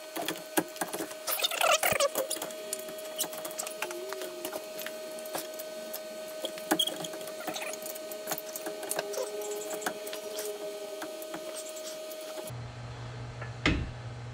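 Irregular light clicks, taps and scrapes of a pry bar and hand tools on a car's steel suspension arm and knuckle, as the arm is forced into line for its bolt, over a faint steady whine. Near the end the background changes to a low hum and one sharp knock.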